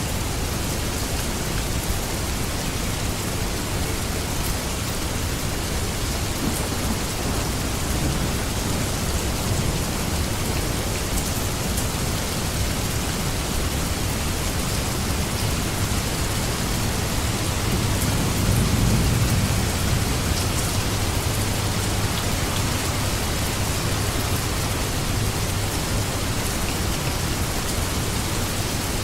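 Steady rain falling. A low rumble of thunder swells and fades about two-thirds of the way through.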